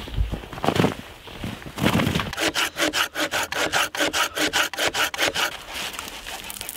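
Folding hand saw cutting through a log in quick, even push-and-pull strokes, about five a second. The sawing starts about two seconds in, after footsteps crunching in snow, and turns uneven near the end.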